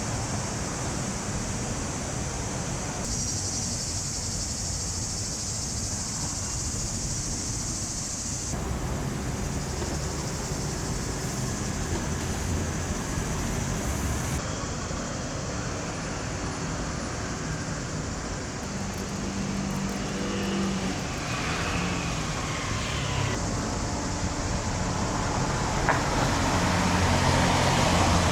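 City street traffic: cars running past on the road, one passing louder near the end, over a steady high hiss.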